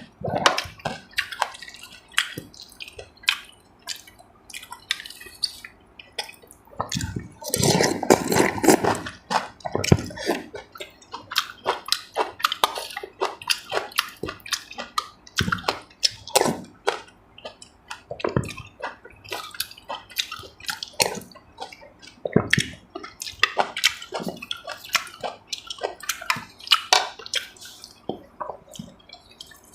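Close-miked eating sounds: wet chewing and lip smacking in many short clicks, with a longer noisy stretch about eight seconds in.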